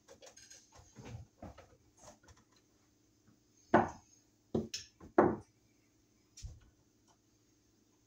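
Small clicks and taps of a screwdriver and a wall receptacle being handled at wooden wall framing, with three sharp knocks about halfway through.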